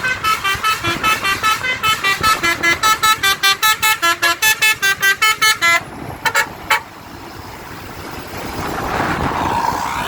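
Basuri musical bus horn playing a fast run of short melodic notes, about four or five a second, stopping about six seconds in. Two short blasts follow, then a swelling rush of noise.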